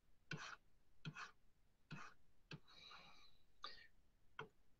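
Near silence broken by about seven faint, scattered clicks, typical of a computer mouse while a document on screen is scrolled.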